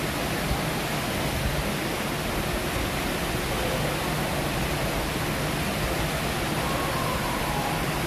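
Steady, even rushing noise like running water, the ambience of the fish-farm tanks' recirculating water system and the greenhouse's air handling.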